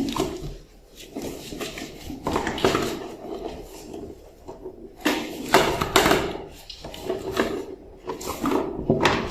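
Kittens scrabbling about on a hard surface: irregular scrapes, knocks and rustles, busiest about five to six seconds in and again near the end.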